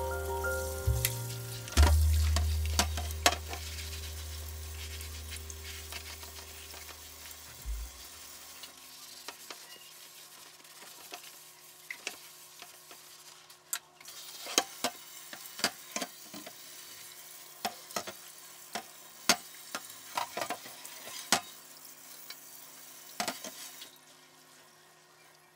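A Teflon-coated grill plate being scrubbed with a brush and rinsed under running tap water in a stainless steel sink: a steady hiss of water with scattered clicks and knocks as the plate is handled. Soft background music with low bass notes sounds through the first several seconds.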